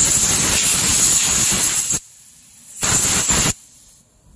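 Compressed-air blow gun blasting air through a K6A fuel injector to dislodge clogs: a loud hiss that cuts off abruptly about two seconds in, then one more short blast of under a second.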